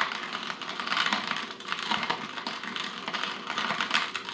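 Coffee beans being ground in a hand-crank coffee grinder as the handle turns: a steady, irregular run of little crunches and clicks.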